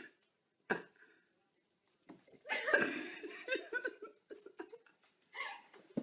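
A pet animal's cries, pitched and broken, starting about two seconds in and coming on and off after that, with a single click shortly after the start.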